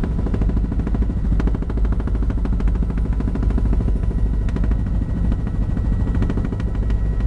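Helicopter running, its rotor blades chopping in a fast, steady beat over loud engine noise.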